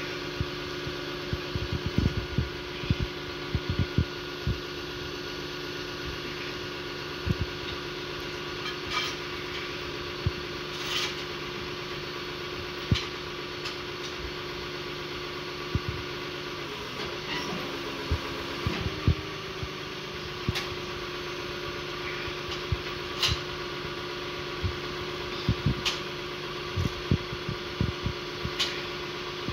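Tow truck's engine idling steadily, its pitch wavering and dipping briefly about two-thirds through, with scattered light knocks and clicks.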